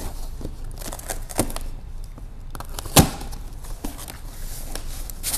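A double-layer cardboard box being opened: a box cutter slicing its packing tape and the flaps being pulled open, with scattered scrapes and clicks and one sharp knock about three seconds in.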